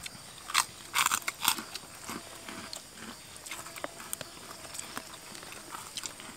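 People eating with their hands from a banana-leaf spread: a short cluster of sharp crackles, three or four, around a second in, then scattered faint clicks and rustles.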